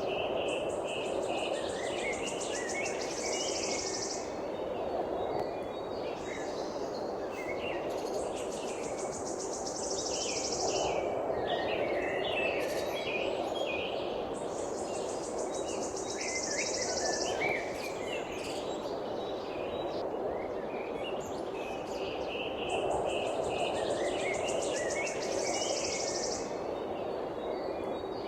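Songbirds chirping in short scattered calls, with a high, rapid buzzing trill that comes in bursts of about three seconds, four times, over a steady low background hiss.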